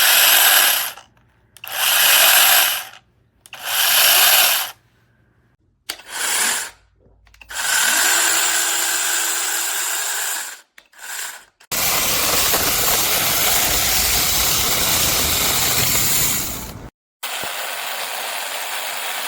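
Battery-powered 6-inch brushless mini chainsaw triggered in three short bursts about a second each, then run for several seconds at a time, its motor and chain giving a steady high whine.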